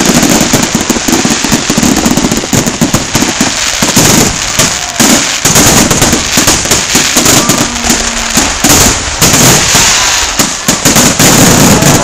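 Fireworks display with many shells going off at once: a loud, continuous, rapid barrage of bangs and crackling bursts.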